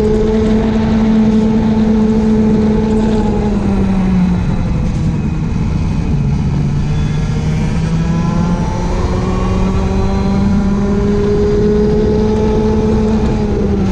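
Racing kart engine running at high revs on a wet track, the revs dropping about four seconds in for a corner, then climbing again and dropping once more near the end.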